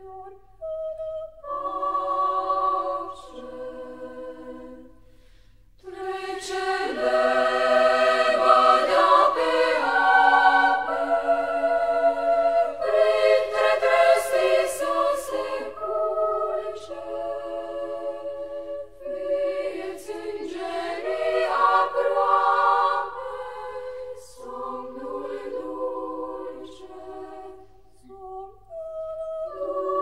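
Background music: a choir singing a cappella, sustained chords in phrases that swell and fade, louder from about a fifth of the way in.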